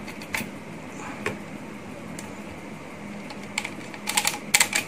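Hard plastic parts of a 1:200 scale Airbus A380 model clicking and tapping against each other as the wing is pushed into its slot in the fuselage. A few separate clicks come at first, then a quick run of sharper clicks near the end.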